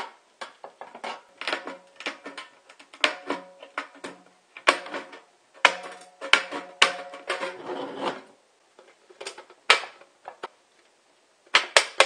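Pliers bending and smoothing the jagged cut edge of a hole in a steel can: a rapid, irregular series of metallic clicks and scrapes. The can body rings briefly now and then.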